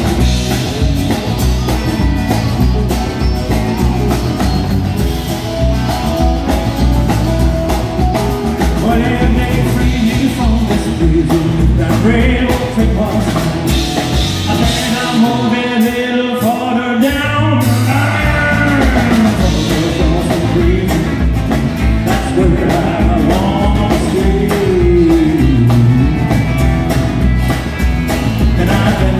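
Live country band playing a song: a man sings over strummed acoustic guitar, electric guitars, bass and drums. About halfway through the low end drops out for a few seconds while the singing goes on, then the full band comes back in.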